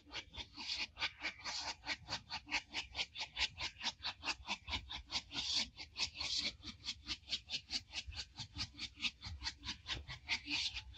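ÖBB class 93 steam locomotive chuffing in a quick, even beat of about five exhaust beats a second, with a couple of brief louder hisses of steam.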